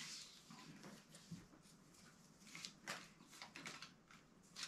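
Faint rustles and soft clicks of Pokémon trading cards being handled and slid across one another as a pack is flipped through, a few short strokes spread through the quiet.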